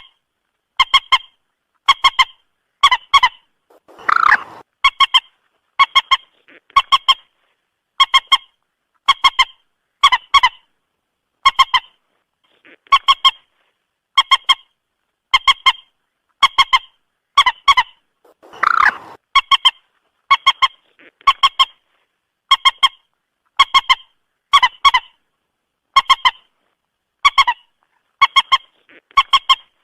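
Common moorhen calls: short two- or three-note honking calls repeated about once a second, with a longer, harsher call about four seconds in and again about nineteen seconds in.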